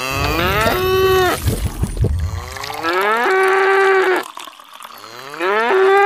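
Cow mooing three times, each call rising in pitch and then held steady for about a second.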